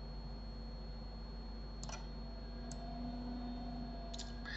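A few faint computer mouse clicks, about two seconds in and again near the end, over a steady low electrical hum.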